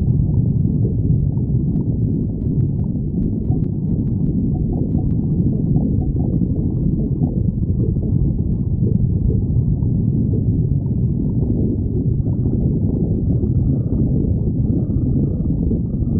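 A person's empty stomach growling and gurgling in a continuous low rumble. A few faint clicks come between about two and five seconds in.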